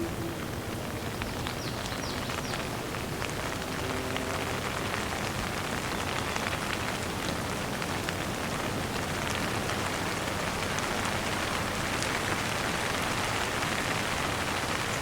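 Light rain falling steadily, a dense even patter with scattered individual drops ticking on surfaces.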